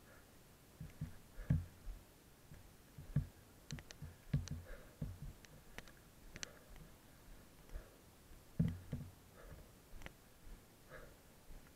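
Mountain bike rattling over a rough dirt singletrack: irregular low thuds and sharp clicks as the bike takes bumps, with the loudest knocks about a second and a half in and again near the nine-second mark.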